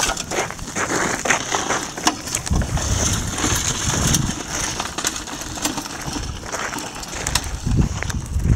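Footsteps crunching on dry gravelly dirt, with scattered crackling from a gasoline-soaked lawn mower burning close by. A low rumble runs through the middle.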